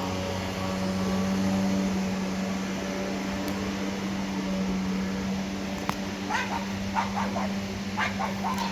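A pressure washer's engine runs with a steady drone. From about six seconds in, a dog barks and yips several times in quick short bursts.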